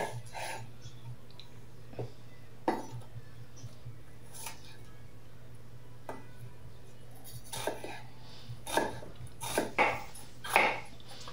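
Kitchen knife cutting on a wooden cutting board: scattered single knocks while dicing an onion, then a quicker run of cuts in the last few seconds as a red bell pepper is sliced into strips.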